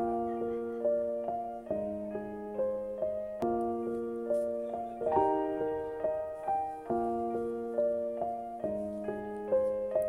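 Solo piano playing a slow, gentle intro of broken chords, each note struck and left ringing, with a new chord about every second and a half.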